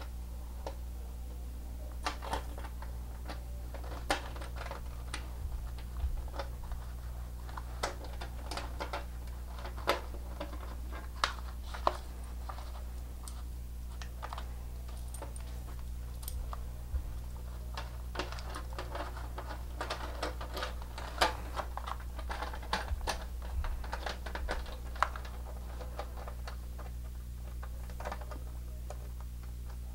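Irregular light clicks and taps of small hardware being handled by hand, over a steady low hum.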